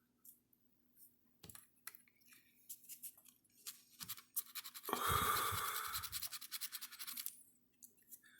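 A coin scraping the latex coating off a scratch-off lottery ticket: a few light scrapes and taps, then about five seconds in a brisk run of rapid back-and-forth scratching for about two seconds.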